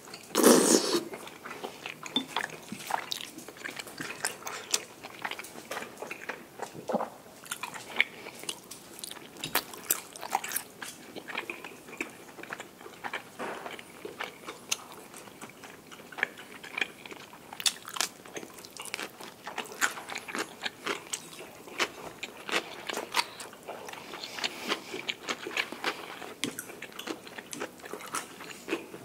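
Close-miked eating: steady chewing with many irregular short crunches and bites of food.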